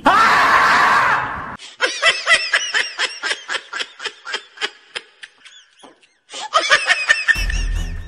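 A loud blast of sound for about a second and a half, then a person laughing in rapid, high bursts. Near the end, music with a heavy bass comes in.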